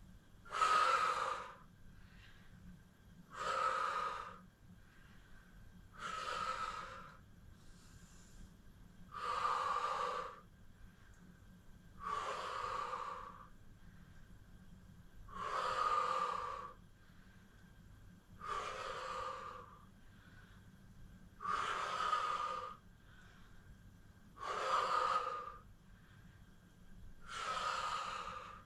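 A woman breathing out hard through her mouth, one long breath about every three seconds, ten in all. These are effortful breaths paced with the repetitions of a Pilates kneeling leg lift.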